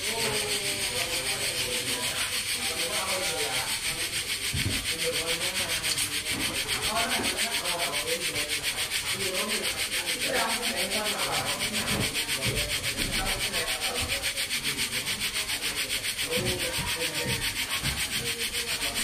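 Steady hissing rush with a fast, even pulse, several beats a second, from the pot of sea snails cooking in coconut milk.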